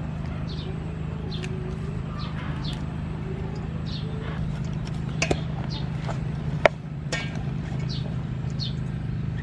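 Small birds chirping again and again in short, falling chirps over a steady low hum. Two sharp knocks come a little past the middle, about a second apart.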